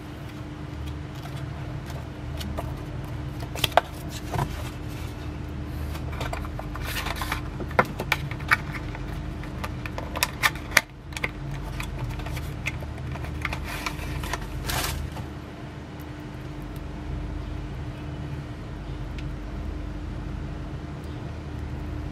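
Paper and thin cardboard being handled: a manual's pages leafed and a small cardboard box opened, with scattered sharp crinkles and clicks, busiest between about three and fifteen seconds in. A steady low hum lies underneath.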